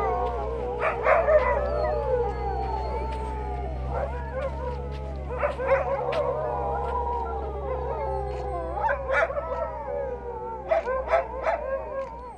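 A pack of Greenland sled dogs howling together in a chorus of many overlapping, wavering howls, with short yelps breaking in a few times.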